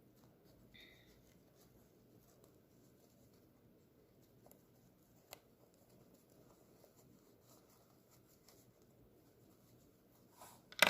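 Faint scratching and rustling of cotton fabric being worked with a pencil's eraser end to push out the seams of a sewn fabric heart, with a few light ticks and a sharp knock right at the end.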